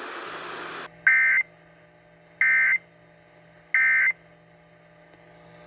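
A second of hiss, then three short identical bursts of warbling digital data tones, each about a third of a second long and spaced just over a second apart. This is the Emergency Alert System's SAME end-of-message code, which closes the alert.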